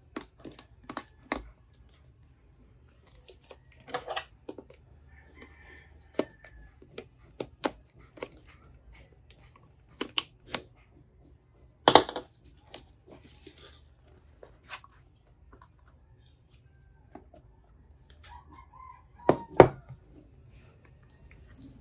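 Unboxing a Samsung Galaxy Z Flip3 5G cardboard retail box: a run of short, sharp taps, clicks and scrapes from fingers and nails on the box as the tamper-seal stickers are picked at and torn and the box is opened, with the loudest knocks about twelve seconds in and near the end and a couple of brief squeaks.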